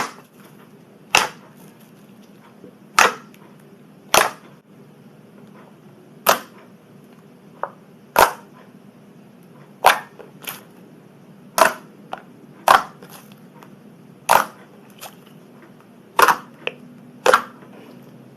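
Slime being squeezed and poked, giving sharp pops at irregular gaps of about one to two seconds, a few of them quieter.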